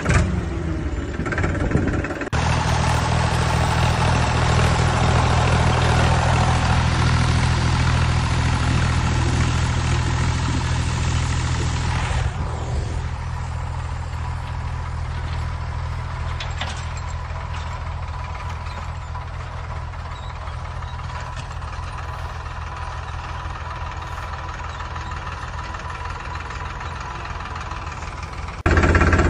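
Tractor engine idling at a steady low chug. It cuts in abruptly about two seconds in, drops in level about twelve seconds in, and stops abruptly near the end.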